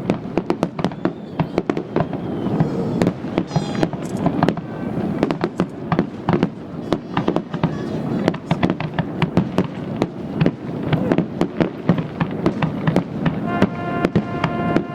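Fireworks bursting in a rapid, dense barrage of cracks and bangs with no let-up. A horn honks near the end.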